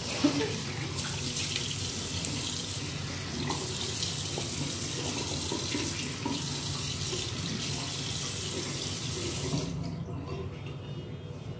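Bathroom sink tap running while someone rinses their face over the basin, with small splashes in the stream. The water shuts off near the end.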